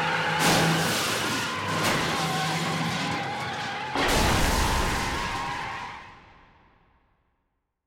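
Anime sound effects of an S30 Nissan Fairlady Z spinning out: tyres skidding and squealing with the engine under them. A sudden, heavier hit comes about four seconds in, then the sound fades away to silence.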